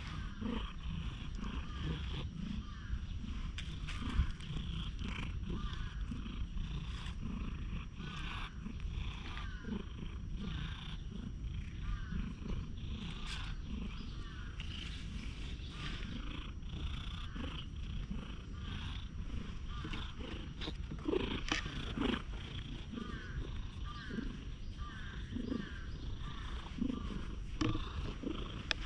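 Tabby cat purring steadily, close up, while it is stroked on the head, over constant high-pitched chirping in the background. A single sharp knock sounds about four seconds in.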